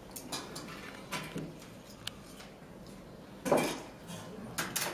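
Kitchen handling sounds: scattered clinks and knocks of utensils and dishes, with the loudest knock about three and a half seconds in and two more near the end.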